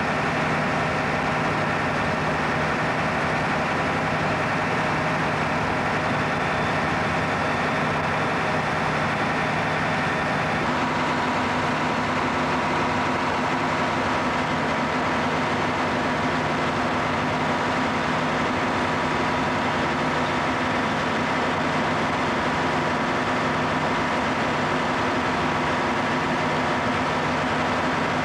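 Fire engine's engine idling, a loud steady hum with a held drone that changes slightly about ten seconds in.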